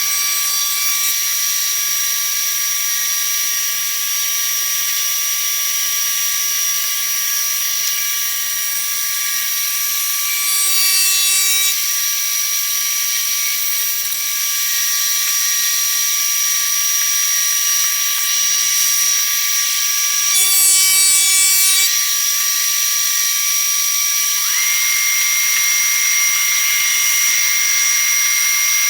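Shopsmith thickness planer running with a steady high-pitched whine and hiss as a board on a planer sled feeds through it to be flattened. It gets briefly louder twice, and a second whine tone joins near the end.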